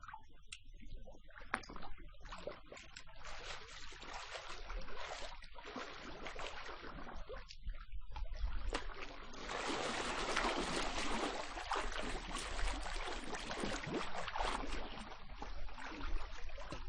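A person swimming: water splashing and churning with the strokes, irregular and uneven, growing louder about halfway through.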